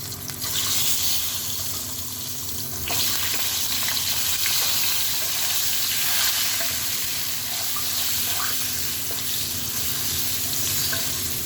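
Hard-boiled eggs frying in hot oil with salt and turmeric in a kadai: a steady sizzle that gets louder about three seconds in, with a few light clicks.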